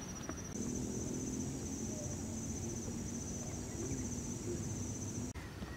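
Insects trilling steadily in forest undergrowth, a high rapidly pulsing buzz, with a second, higher insect joining about half a second in and a faint low hum underneath. The sound cuts off abruptly a little after five seconds.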